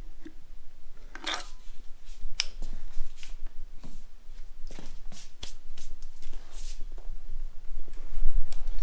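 Scattered light clicks and knocks of metal engine parts being handled: a piston on its connecting rod pushing a piston ring squarely down a Mitsubishi 4G63 cylinder bore, so the ring's end gap can be checked.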